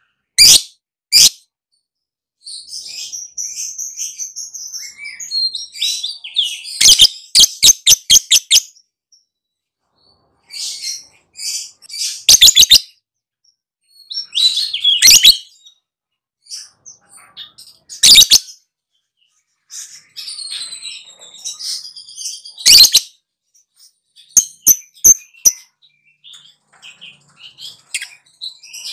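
Lovebird singing its ngekek: long, high-pitched chattering trills, broken several times by short runs of sharp, loud clicking notes, with brief pauses between phrases.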